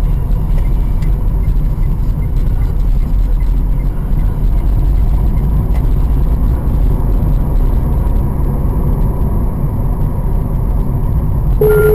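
Steady low rumble of a car's engine and tyres heard from inside the cabin while driving, with a short electronic beep near the end.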